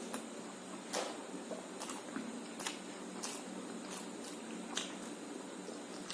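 A person eating rice with egg curry: wet chewing and mouth noises, with sharp wet clicks about every half second to a second, over a steady background hiss.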